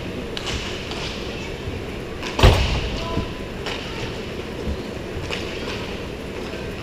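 Roller hockey play on an indoor sport-tile rink: a steady background hum with scattered clicks of sticks and puck, and one sharp knock about two and a half seconds in, the loudest sound.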